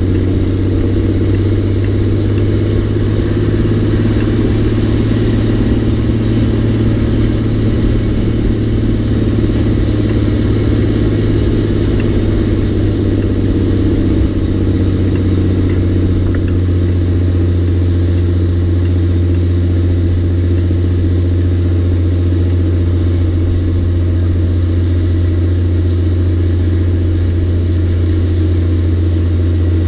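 Caterpillar 3406 diesel of a Peterbilt 359 tractor unit pulling a heavy load, a steady low drone with no gear changes, heard from the steam engine riding on its trailer.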